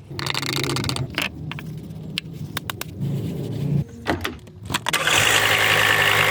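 Mercedes W124 250d's five-cylinder diesel engine being started: key clicks and short spells of starter cranking, then the engine fires about five seconds in and settles into a steady idle.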